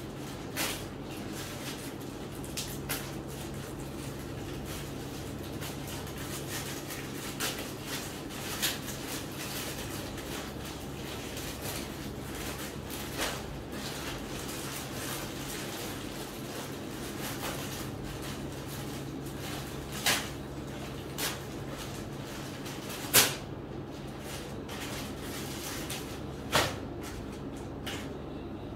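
Clear plastic garment packaging crinkling and rustling as clothes are taken out and unwrapped, in about ten scattered sharp crackles, the loudest about two-thirds of the way through, over a steady low hum.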